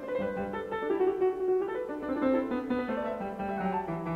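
Background music: a piano melody playing a run of notes.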